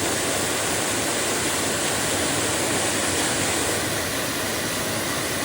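Waterfall running in high flow after days of rain: a steady, even rush of falling water.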